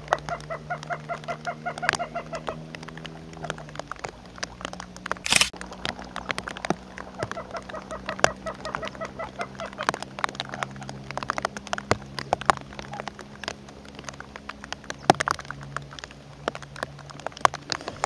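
Waterbirds calling: runs of rapid repeated calls, about three a second, at the start and again from about seven to ten seconds in, over a steady low hum and scattered sharp clicks.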